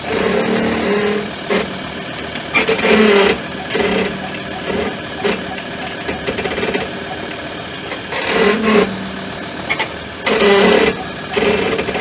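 Rear brake pads of a Ford Endeavour (Everest) groaning in short, repeated low-pitched moans, each under a second, about eight times, over steady vehicle noise. The noise was traced to the rear brake pads (part number ending 2200E) and was cured by newer pads.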